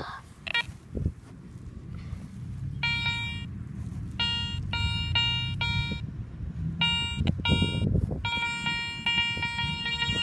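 Metal detector sounding on a buried target: a buzzy electronic beep repeated in short pulses, then a longer unbroken tone near the end. The target reads 84–85 on the detector, typical of a copper penny or a dime.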